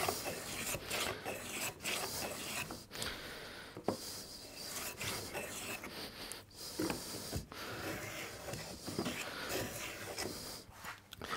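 Hand rebate plane shaving wood along the edge of a panel, cutting a rebate. It makes a series of short rasping strokes about a second each, with brief pauses between them.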